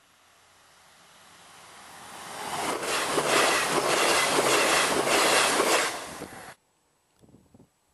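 A train approaching and passing close by at speed. A rush of noise swells and becomes a loud, rhythmic rattle of wheels on the rails, then cuts off suddenly about six and a half seconds in.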